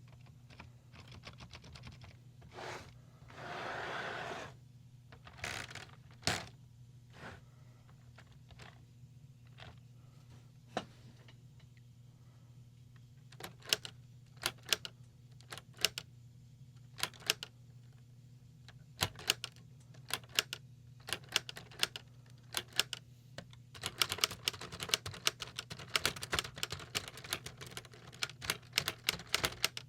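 Typewriter keys being struck: single clacks at uneven intervals, then a fast run of typing near the end. A brief rustling swish comes about three seconds in.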